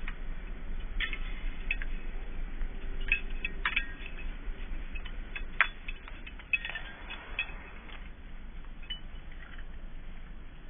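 Light metallic clinks and jingles from dog collar and leash hardware as the dogs move, scattered and irregular, coming thickly over the first seven seconds or so and only now and then after that.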